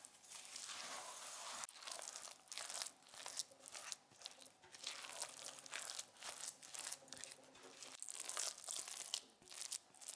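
Silicone spatula stirring and pressing a thick mixture of breadcrumbs, grated vegan cheese, parsley and mashed eggplant against a glass bowl. It makes repeated short scraping, gritty strokes, one or two a second, in an uneven rhythm.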